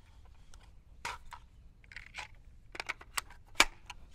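Scattered clicks and knocks from handling an AR-15 rifle as a fresh magazine goes in, with one sharper, louder knock near the end.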